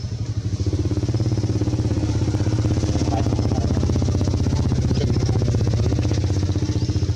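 A motor engine running steadily, a deep even hum with a fast, regular throb, swelling over the first second and then holding.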